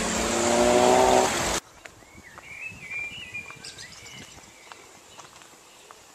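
A car engine accelerating, its pitch rising, heard from inside the moving car, cut off abruptly about a second and a half in. Then a bird sings a warbling phrase over faint footsteps.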